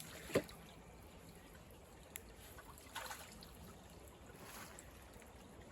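Faint trickling of creek water, with one sharp knock just after the start and a few smaller clicks and scrapes later.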